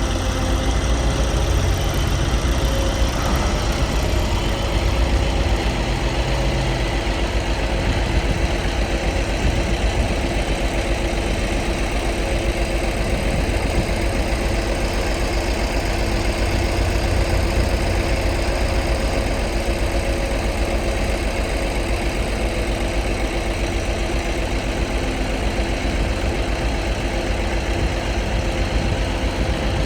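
11-ton Bomag padfoot compactor's diesel engine running steadily, with a heavy low rumble and a constant engine hum.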